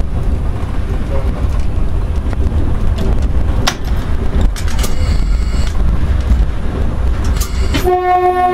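ED9M electric multiple unit running, a steady low rumble heard from inside the driver's cab, with a few clicks. Near the end a train horn sounds one steady, loud tone.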